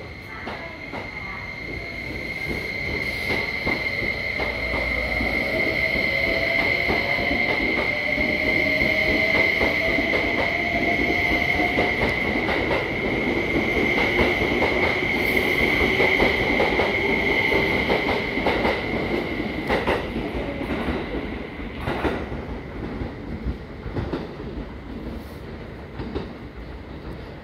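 Saphir Odoriko electric express train pulling out and gathering speed past the platform. A steady high whine runs under a lower tone that rises in pitch as it speeds up, with wheels clicking over rail joints. The sound builds, then fades over its last several seconds as the train leaves.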